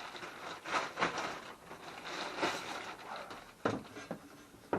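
A few light clicks and knocks of rotavator parts being handled and moved during a strip-down, the sharpest one a little after three and a half seconds in.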